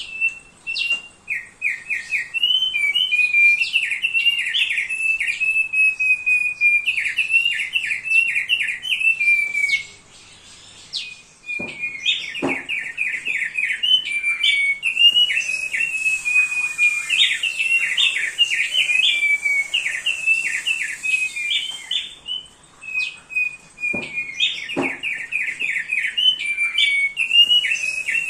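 Thick-billed heleia (opior paruh tebal) singing: long phrases of rapid, repeated whistled notes, broken by two short pauses. A couple of faint knocks come just after the pauses.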